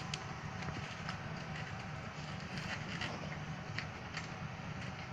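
Motorcycle engine idling steadily, with scattered light clicks and knocks over it.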